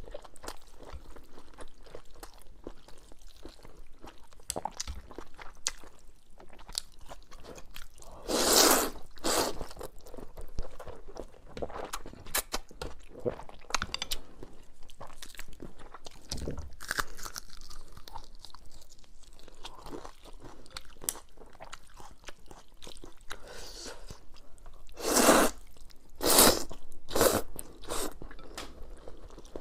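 Close-up eating sounds from a bowl of spicy noodles: steady chewing, crunching and small wet smacks. A few louder bursts come about eight seconds in and twice near the end.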